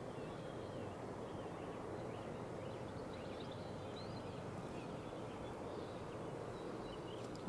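Early-morning outdoor ambience: faint scattered birdsong chirps over a steady low rush.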